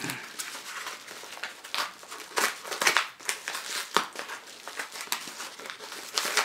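Yellow padded paper mailer being cut open with a snap-off utility knife: paper crinkling and scraping in a run of irregular strokes.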